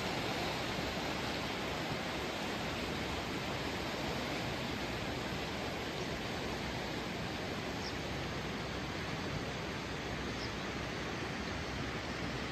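Swollen, muddy river in spate rushing past in a steady, unbroken roar of water.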